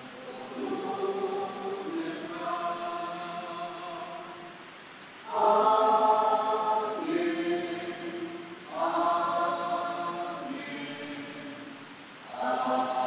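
Church congregation singing a slow hymn together in long held phrases, with new phrases coming in strongly about five, nine and twelve seconds in.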